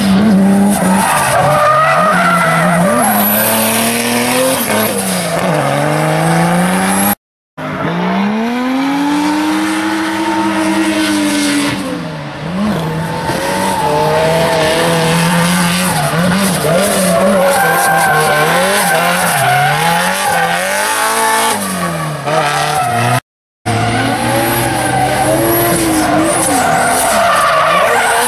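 Drift cars sliding through a corner, engines revving up and down while the tyres squeal and screech. The sound cuts out for a moment twice, about a quarter of the way in and again about four-fifths of the way through.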